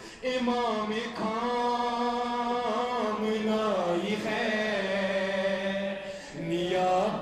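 A man's solo voice chanting a slow, melodic recitation, holding long notes with short breaks between phrases.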